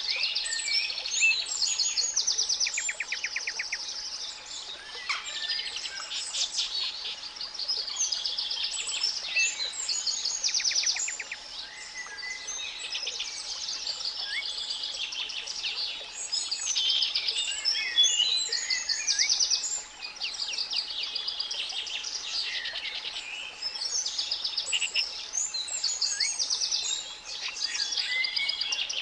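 A dense chorus of songbirds singing over one another, many phrases made of rapid trills, with a faint steady 852 Hz pure tone underneath.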